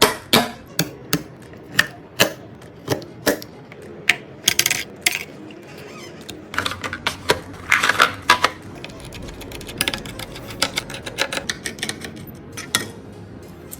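Irregular sharp clicks, taps and light clatter of hard plastic and metal computer parts being handled and fitted during a PC build, busiest around the middle.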